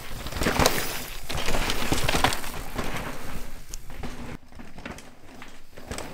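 A mountain bike riding down a rocky dirt trail: tyres crunching over sand and rock with irregular knocks and rattles, louder in the first couple of seconds and quieter after about four seconds in.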